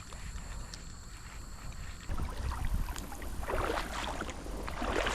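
Water sloshing and splashing around boots as someone wades through a shallow creek, starting about two seconds in, with wind rumble on the microphone.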